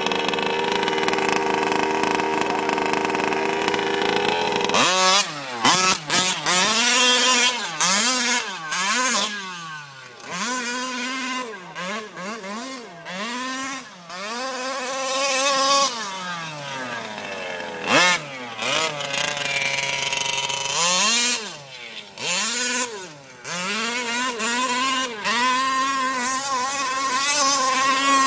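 Losi 5iVE-T 1/5-scale RC truck's two-stroke gas engine, idling steadily at first. From about five seconds in it revs up and down over and over, its pitch rising and falling as the truck accelerates and backs off.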